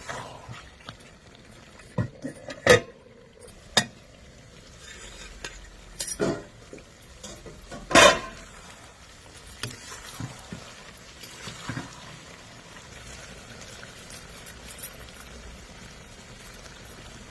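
A metal spoon stirring curry in a cooking pan, knocking and scraping against the pan several times in the first half, the loudest about eight seconds in. Under it runs a soft steady sizzle of the food frying.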